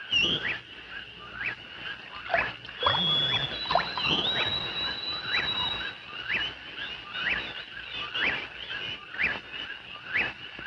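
Wild animal calls: repeated short squeaky chirps, one or two a second, over a thin, steady high tone.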